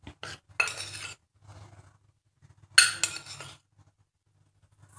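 A spoon clinking and scraping against a dish in a few short bursts while salt is added to urad dal batter, the loudest burst about three seconds in.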